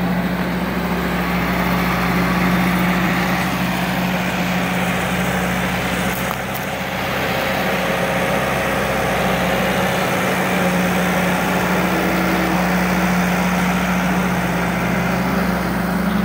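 Allis-Chalmers Series III farm tractor engine running steadily at low speed as the tractor drives, dipping briefly in loudness about six seconds in.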